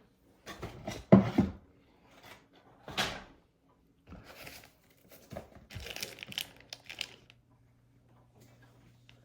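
Handling noise in a small room: knocks, clicks and rustling, with a sharp knock about a second in as the loudest sound. A low steady hum comes in about six seconds in and carries on.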